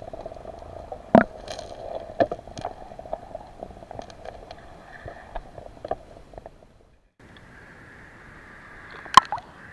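Muffled underwater sound through a camera housing, with scattered sharp clicks and knocks. It cuts out about seven seconds in. Then comes a steady hiss of water at the sea surface, with a sharp splash of a wave against the camera near the end.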